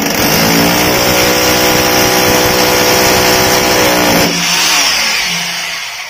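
Electric hammer drill boring into a concrete wall, a loud grinding hammering over the motor's whine. About four seconds in the drilling stops and the motor winds down, its whine falling in pitch as it fades.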